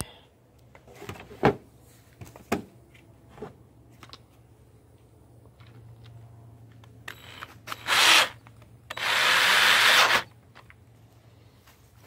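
A few knocks of parts being handled, then a power drill runs in two short bursts, the second and longer lasting about a second.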